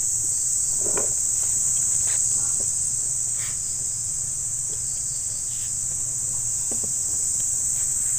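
Insect chorus chirring steadily at a high pitch, with a few faint scrapes and ticks from digging in soil.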